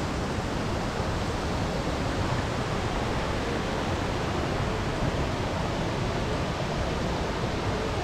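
A waterfall, its water rushing steadily as an even noise without breaks.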